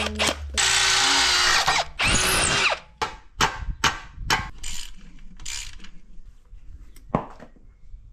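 Cordless drill running in two loud bursts over the first three seconds, then a rubber mallet striking a shovel in a run of separate knocks, with a last one near the end.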